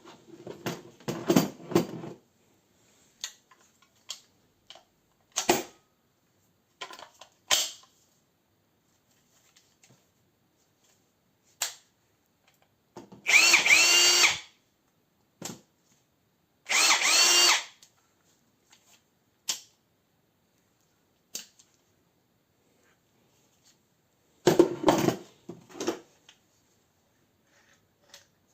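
AEG BSB18CBL brushless 18-volt cordless combi drill, set to hammer mode, drilling into sand-lime brick with an 8 mm bit. It runs in several short bursts of a second or two with pauses between, its motor whine rising and falling with speed.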